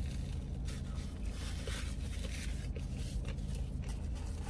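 A paper sandwich wrapper crinkling and rustling in the hands in short irregular bursts while she eats, over a steady low hum.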